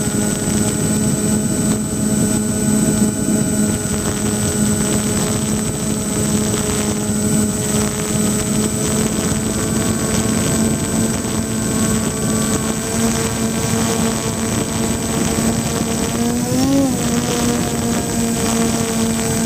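Two electric RC plane motors spinning 10x6 direct-drive propellers in flight, a steady whine over rushing air. Near the end the pitch briefly rises and falls again.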